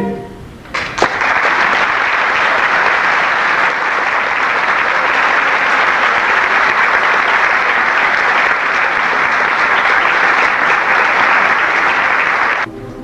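Audience applauding steadily, starting about a second in and cutting off suddenly near the end.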